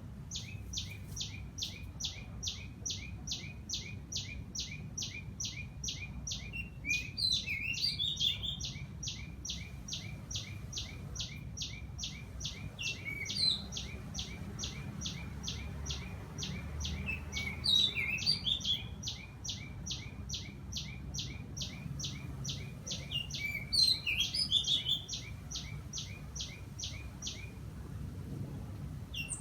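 Birds calling: a steady run of sharp, evenly spaced notes about three a second that stops near the end, with another bird's short, quick chirping phrases breaking in about four times.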